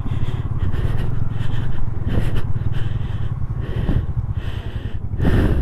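KTM Duke 390's single-cylinder engine chugging at low revs as the motorcycle crawls over loose rocks, with brief rises in revs at about two and four seconds in and a louder one near the end.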